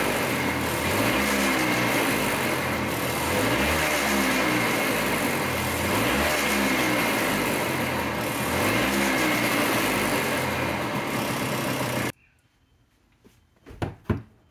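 Air-cooled two-stroke engine of a 1958 NSU Prima D scooter running, its revs rising and falling about four times. It cuts off abruptly about twelve seconds in, followed by a few faint knocks near the end.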